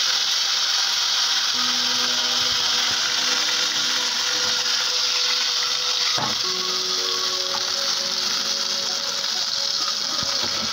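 Battered fish frying in hot oil in a wok, a loud, steady sizzle.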